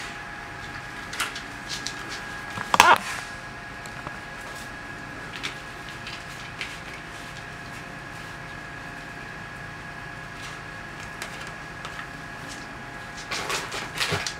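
Dog toy being pushed around and mouthed on a hard floor by a dachshund: scattered taps, knocks and scrapes, with the loudest clatter about three seconds in and another cluster near the end. A faint steady hum runs underneath.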